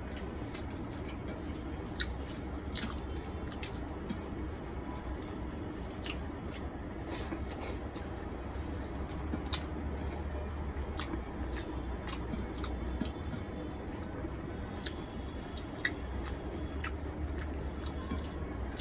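Fingers squishing and mashing rice with dal on a plate, with chewing and many small scattered clicks, over a steady low hum.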